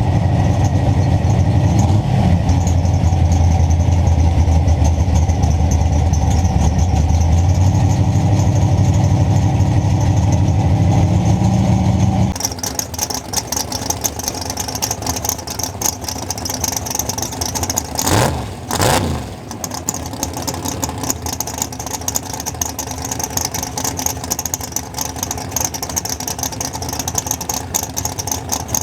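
Big-block Chevy drag-race car engine running loud and steady at low revs. About twelve seconds in the sound changes abruptly to a quieter, hissier engine-and-rushing-air noise. A brief pitch sweep, rising then falling, comes around the eighteen-second mark.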